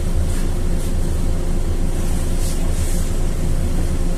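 Inside a LiAZ-4292 city bus on the move: steady engine drone and road noise.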